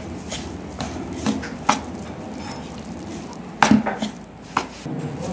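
Metal spoon stirring semolina and flour with hot water in a ceramic bowl: a steady scraping broken by several sharp clinks of the spoon against the bowl, the loudest a little past halfway.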